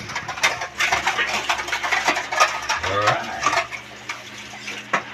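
Clattering and clinking of kitchen pots and utensils, a quick run of small knocks that eases off after about three and a half seconds, with a brief voice-like sound about three seconds in.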